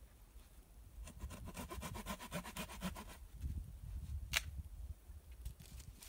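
Dry sticks being handled and broken while a shelter wall is built: a fast crackling rasp for about two seconds, then dull thumps and a sharp snap.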